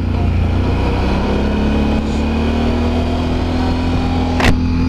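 Can-Am Renegade 1000 XXC quad's V-twin engine running while riding, its note rising slowly. One sharp click about four and a half seconds in.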